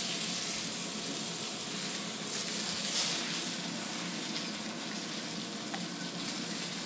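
Steaks sizzling steadily as they sear on a ridged grill pan over a gas flame.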